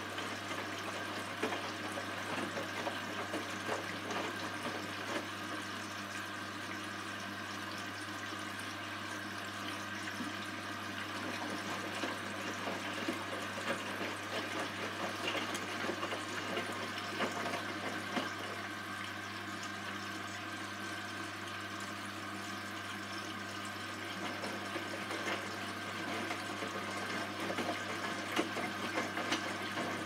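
Hotpoint front-loading washing machine tumbling a wet load, water sloshing in the drum over a steady motor hum.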